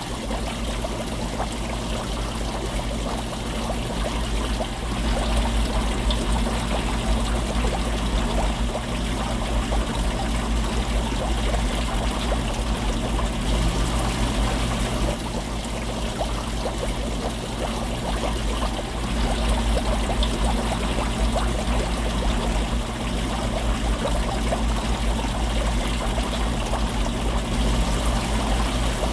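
Water circulating in an aquarium tank full of trout, heard from underwater: a steady low hum under a dense crackle of bubbling, flowing water, unchanging throughout.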